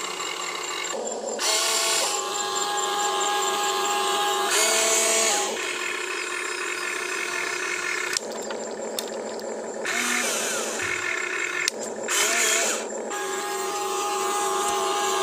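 Electric motors of a Huina 1592 RC excavator whining as the arm, bucket and swing move while it digs and dumps soil. The whine starts, stops and changes pitch every second or two, with short rising and falling sweeps.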